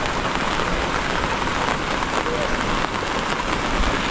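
Steady rain falling, an even hiss with no pauses.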